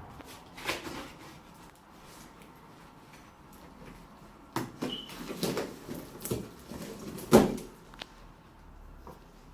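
Cardboard box being cut open and unpacked: scattered rustles, scrapes and knocks of cardboard and packaging, with a cluster of them about halfway through and the loudest knock a little past two thirds of the way in.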